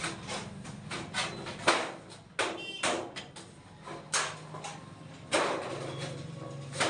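Irregular series of sharp knocks and clacks from hard objects being struck, roughly two a second, over a low steady hum.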